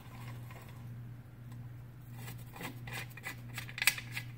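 Metal clicking and clinking as a hoof knife is handled and fitted into a homemade knife vise. A steady low hum runs underneath. The clicks come from about two seconds in, the sharpest just before the end.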